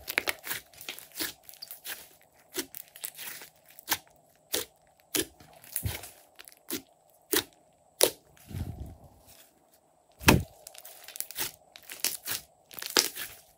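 Glossy slime being squeezed, folded and stretched by hand, giving a string of sharp wet pops and clicks as air trapped in the slime bursts. Two duller thuds come in the second half.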